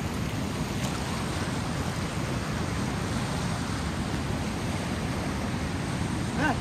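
Steady rushing outdoor noise of wind buffeting the microphone, mixed with the wash of river water along the shore.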